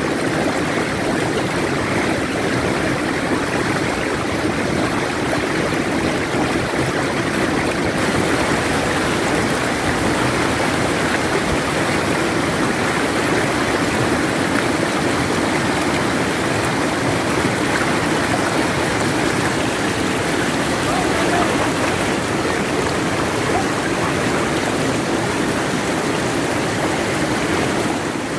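Shallow river rapids rushing steadily over rocks.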